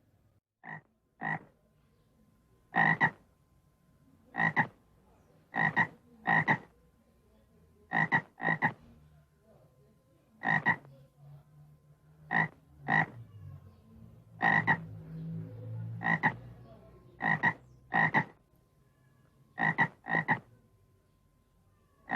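A frog croaking: short, sharp calls, often in quick pairs, repeated every second or two, with a faint low drone between calls around the middle.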